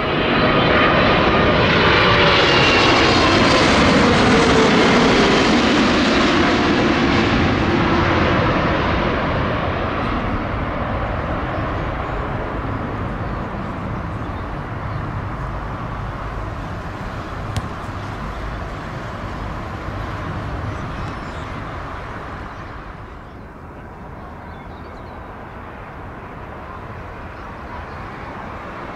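Jet airliner on final approach passing low overhead. Its engine whine drops in pitch as it goes over, is loudest for the first several seconds, then fades into a long rumble. Near the end a second airliner's engines grow louder as it approaches.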